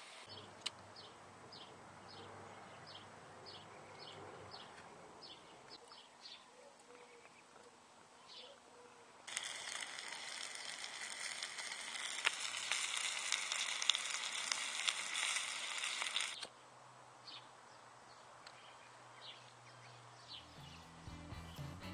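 Wood burning in a homemade tin-can stove: a steady loud hiss full of small crackles that starts suddenly about nine seconds in and cuts off sharply about seven seconds later. Before and after it, faint short high chirps.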